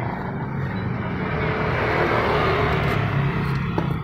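A motor running steadily with a low hum, and a single light metallic click near the end as a wrench works a bolt on the scooter's final-drive case.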